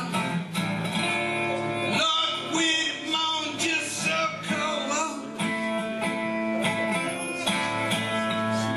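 Resonator guitar strummed in a steady rhythm, playing chords.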